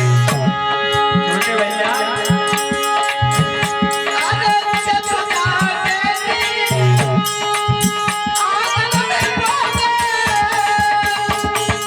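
Indian folk devotional music without words: sustained held notes with a wavering melody line above them, over a steady beat of hand drums and rattles.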